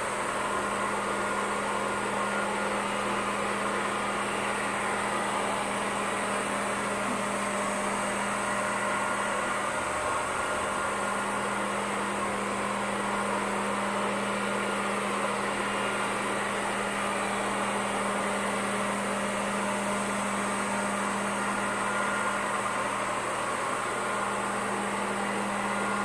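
JISIWEI i3 robot vacuum cleaner running in its auto cleaning mode: a steady whirring hum from its suction motor, with a constant low drone underneath.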